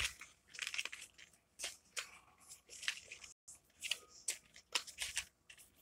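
Faint handling sounds of a miniature doll's suitcase and a tiny paper book: soft scattered clicks and rustles as the book is fitted into the little plastic case.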